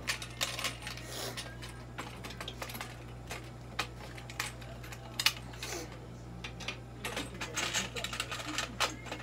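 Irregular light clicks and clinks of small objects being handled, with a few brief rustles, over a steady low electrical hum; the sharpest click comes about five seconds in.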